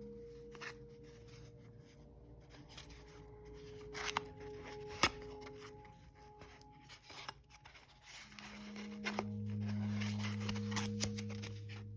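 Plastic keycaps being handled: scattered light clicks and rustling, busiest near the end, over soft sustained background tones.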